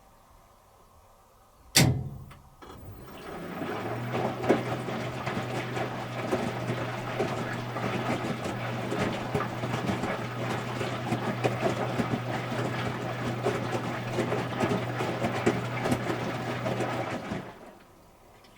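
Electrolux Wascator W355H commercial washing machine: a sharp click, then water rushing into the drum through the inlet valve with a steady low hum for about thirteen seconds, cutting off suddenly near the end.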